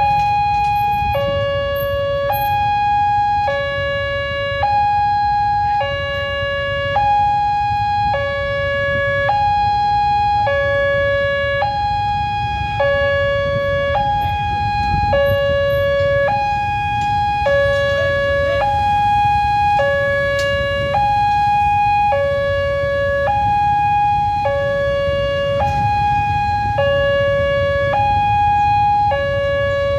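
Railway level-crossing warning alarm sounding, an electronic two-tone signal alternating steadily between a higher and a lower note, each about a second long; it signals that a train is approaching and the crossing is closed. A steady low rumble runs underneath.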